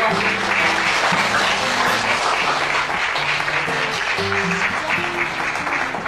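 A group of people applauding over background music.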